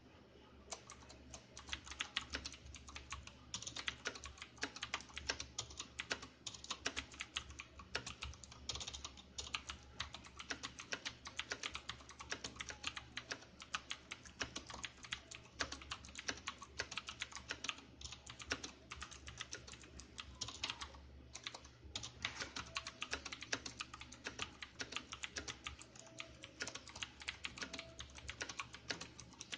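Cooler Master MasterKeys Pro S mechanical keyboard with clicky Cherry MX Blue switches being typed on fast and continuously, a rapid stream of sharp key clicks. The typing starts about a second in and pauses briefly about two-thirds of the way through.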